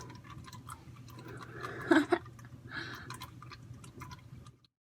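Engine oil dripping from a loosened oil filter into a drain pan, an irregular patter of small ticks over a low steady hum, with a louder clatter about two seconds in. The sound cuts out abruptly near the end.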